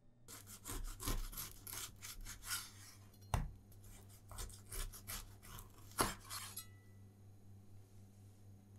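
Knife sawing back and forth through the crust of a braided cinnamon raisin loaf in quick rasping strokes, with a sharp knock twice as the blade comes down on the wooden cutting board at the end of each slice. The sawing stops about two-thirds of the way through.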